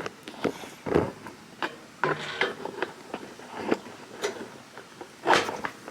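Handling noises as a camera is moved and set in place: scattered clicks and knocks, with a louder thump about a second in and another, the loudest, near the end.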